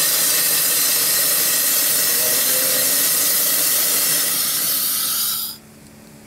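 Steam hissing steadily from the quarter-scale steam donkey's boiler, the steam blower jetting up the stack to draw the firebox fire. It cuts off suddenly about five and a half seconds in.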